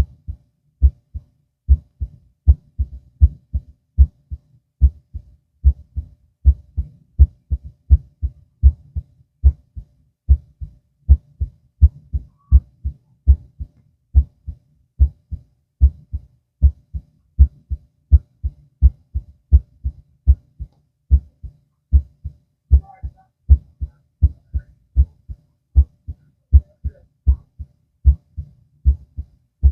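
A human heartbeat heard through a stethoscope: a steady, even rhythm of paired low thuds, the lub-dub of the heart valves closing.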